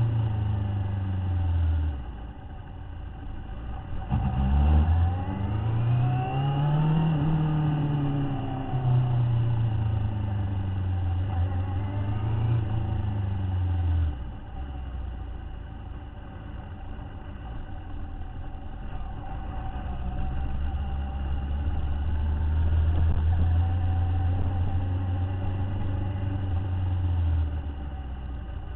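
Motorcycle engine under way: it revs up and eases off about four to eight seconds in, then runs at steady low revs and drops toward idle near the end.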